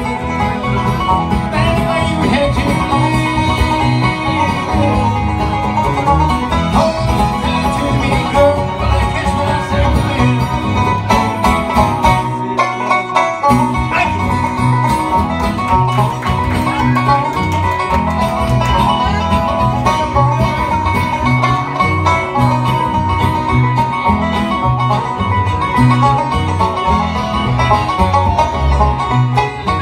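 Live bluegrass band playing an instrumental passage: acoustic guitars strumming a steady rhythm with a fiddle, and no singing.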